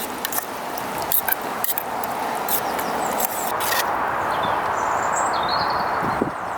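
Steady rushing of wind, with scattered small clicks and taps in the first few seconds and a couple of faint high chirps about five seconds in.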